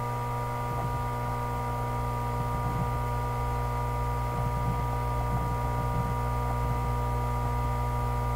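Steady electrical mains hum and buzz, a set of unchanging tones from low to mid pitch, picked up by the recording microphone.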